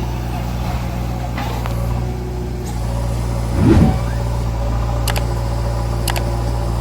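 Heavy diesel engine running steadily with a low hum, with a short louder surge a little past the middle and a couple of sharp clicks near the end.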